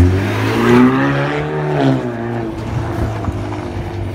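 BMW 320i with its exhaust resonator deleted, accelerating past and away; the engine note climbs in pitch, then falls away about two seconds in to a lower steady running sound.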